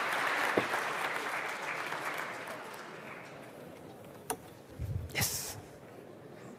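Audience applause fading away over the first few seconds. Near the end, a click and a short clatter of knocks as the laden equipment table is taken hold of and moved.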